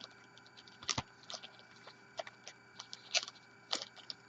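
Cardboard trading-card boxes being handled, giving scattered soft clicks, taps and scrapes, with a sharper click about a second in and a few more near the end.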